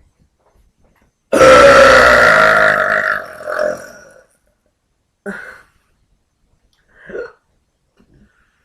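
A woman's long, loud burp, starting about a second in and lasting about two seconds before it trails off, followed by two short, much quieter sounds.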